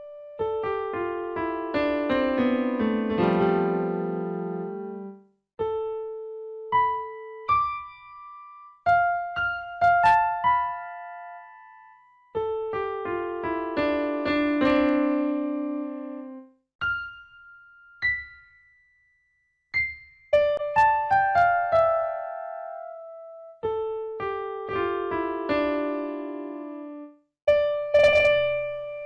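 Background piano music: runs of single struck notes, often falling in pitch, with short pauses between phrases.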